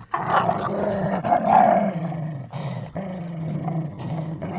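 A dog growling, a long rumbling growl with a few short breaks, loudest about a second and a half in.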